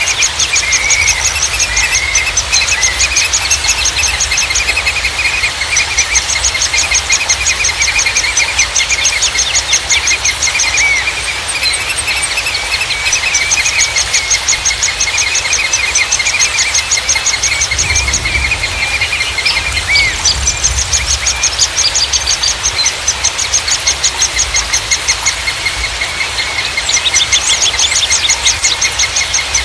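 Songbirds chirping and trilling: a high, fast trill repeats in runs of a few seconds each over scattered lower chirps, with a low rumble underneath throughout.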